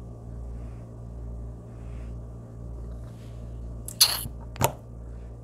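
Steady low hum, then two sharp clicks about four seconds in: a short rattling one and a single click half a second later.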